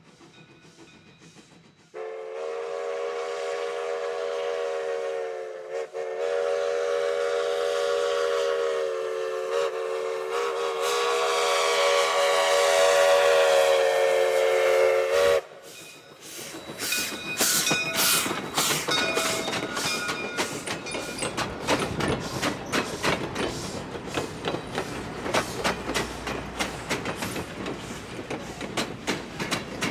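Baldwin steam locomotive's whistle blowing a chord in long blasts for about thirteen seconds as it approaches the grade crossing, loudest just before it cuts off sharply. Then the wheels of the passing train clatter rapidly over the rail joints and crossing.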